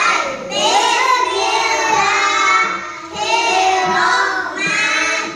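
A class of young children singing together in unison, the prayer before going home, in phrases broken by short pauses about half a second and three seconds in.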